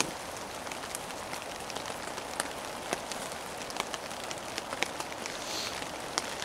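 Steady rain falling in woodland, an even hiss with scattered sharp drops hitting close by at irregular moments.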